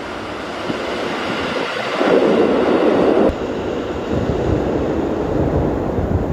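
A train running past, with a steady rush of noise. A louder burst about two seconds in stops abruptly, followed by a lower rumble.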